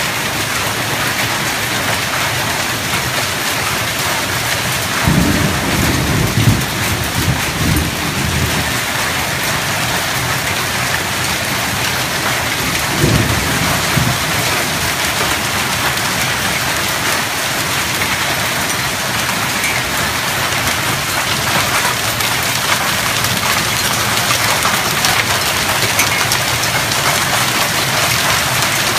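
Heavy rain and hail pelting down steadily on a swimming pool and timber deck, a dense, even hiss of splashing. Low rumbles, likely thunder, swell twice, about five and about thirteen seconds in.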